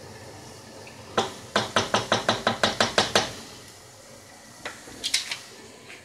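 A quick run of about a dozen sharp metallic clicks, about five a second, then a few more near the end, against the low hiss of a sauce simmering in a pan.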